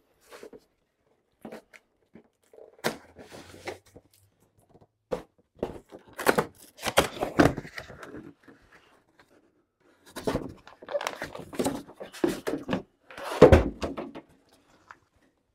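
Long cardboard shipping box being opened and handled: cardboard flaps scraping and rustling, a bagged package slid out and plastic rustling, with scattered knocks of the box on the table. The loudest thump comes about thirteen seconds in.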